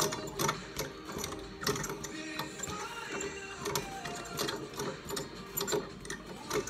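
Leather speed bag being punched, knocking against its overhead wooden rebound board in uneven knocks, roughly two strong ones a second with lighter rattles between.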